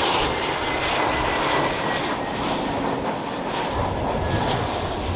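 Jet airliner engines running: a steady rush with a thin high whine, and a deeper rumble that swells about two-thirds of the way through.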